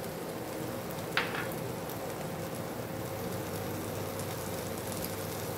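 Potato, onion and tomato curry sizzling steadily in a kadai, with one brief sharper sound about a second in.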